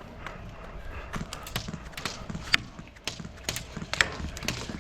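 Footsteps on hard, rough ground, about two to three a second, with irregular sharp cracks scattered through, the loudest about two and a half and four seconds in.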